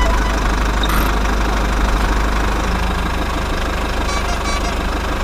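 A small vehicle motor running steadily, with a constant low hum under it.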